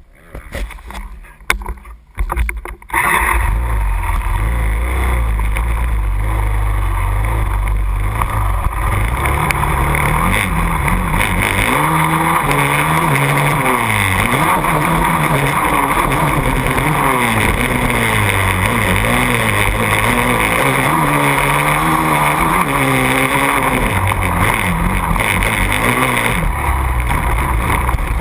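KTM 450 SX quad's single-cylinder four-stroke engine being ridden hard, loud from about three seconds in, its pitch rising and falling again and again with the throttle and gear changes.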